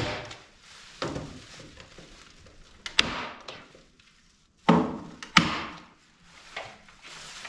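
Staple gun firing staples through plastic sheeting into wood, about five sharp snaps at uneven intervals. The plastic sheeting crinkles between the shots.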